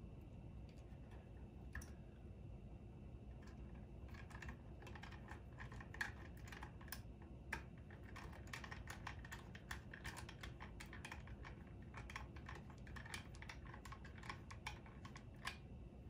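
Light, rapid, irregular clicking and ticking of a precision screwdriver turning small fan screws into a 3D-printed plastic cooler shroud. The clicks are sparse at first and come thick and fast from about four seconds in.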